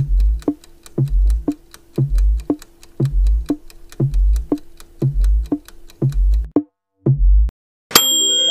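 Countdown-timer music: a repeating electronic beat of low thumps about once a second under ticking clicks about four times a second. The beat stops about two-thirds of the way through, one more low thump follows, and a bright ringing chime sounds near the end as the answer is revealed.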